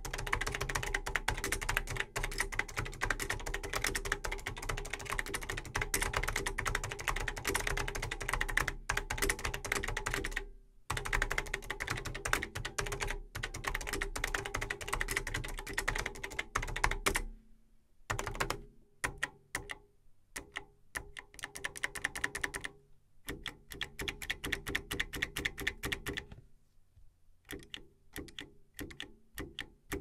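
Typing on a Sanyo MBC-3000 keyboard with rare first-generation Fujitsu leaf spring clicky switches: a fast, dense run of sharp key clicks, broken by a short pause about ten seconds in. From about seventeen seconds the typing turns slower and sparser, in short bursts of clicks with gaps between them.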